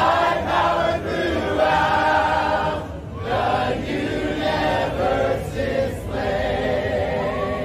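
A crowd of people singing a hymn together.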